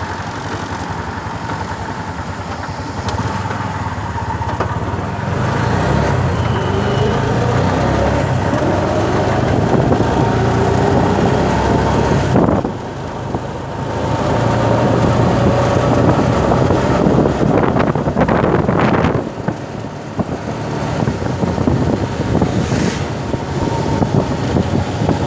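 Inside a moving CNG auto-rickshaw: its small engine running and rising in pitch as it speeds up, over tyre hiss on a wet road. A brief spell of rattling a little past the middle.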